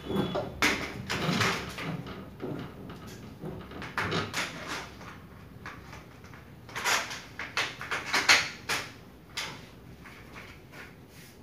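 Irregular handling noises, a string of short scrapes, knocks and rustles, loudest about 7 and 8 seconds in.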